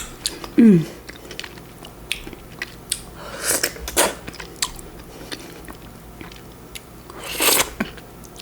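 Close-miked chewing of fresh fruit: soft wet mouth clicks and smacks throughout, with a few louder wet bursts about three and a half, four and seven and a half seconds in. A short falling "mm" sounds about half a second in.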